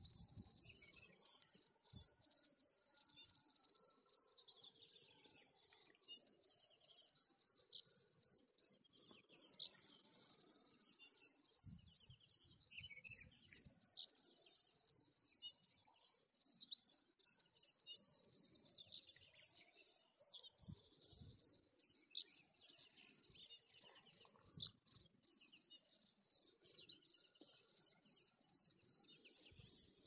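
An insect, cricket-type, chirping in a steady, even rhythm: high-pitched chirps at about three to four a second without a break.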